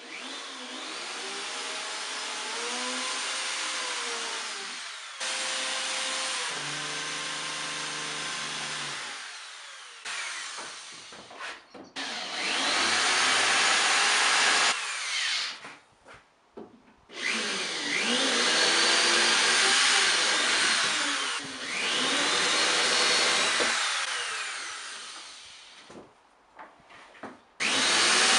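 Corded electric drill with a countersink bit cutting into plywood, in about half a dozen runs of a few seconds each with short pauses between holes. The motor pitch rises and falls as the trigger is squeezed and eased.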